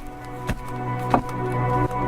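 Background music with sustained notes, with two brief taps about half a second and a second in.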